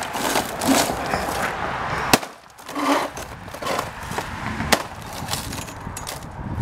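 Metal tines of a long-handled garden fork jabbing into a flat-screen TV panel, crunching and cracking the broken screen, with two sharp clacks, about two seconds in and near five seconds.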